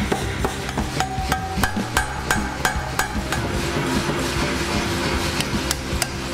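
Power hammer striking red-hot steel, about three blows a second with a metallic ring, as the end of a forged spanner is drawn out and then punched over a bolster. After about three seconds the blows turn lighter and less regular.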